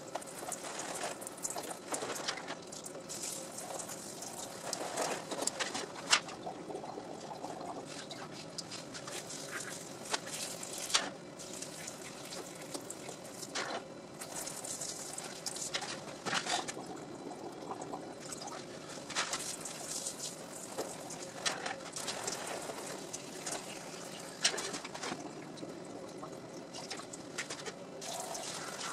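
A hand squirt bottle spraying water onto a hanging adult brief in many short squirts, with water running and trickling between them.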